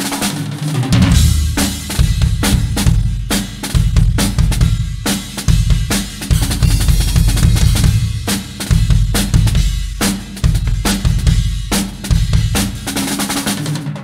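Pearl acoustic drum kit with Paiste cymbals played as a fast solo: dense snare and tom strokes over a driving bass drum, with cymbal crashes, as a sound check of the kit.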